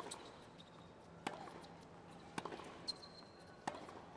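Tennis ball being struck by rackets and bouncing on a hard court during a rally: four sharp knocks about a second and a quarter apart.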